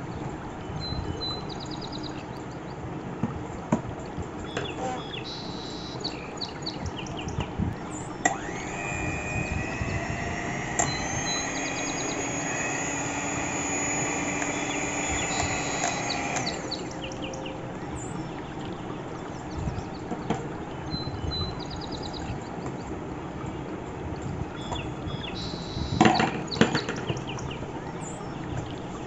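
Scarlett HE-133 electric hand mixer's motor running with two chrome beaters spinning in the air, a steady whine lasting about eight seconds in the middle. Near the end comes a short clatter of plastic and metal clicks.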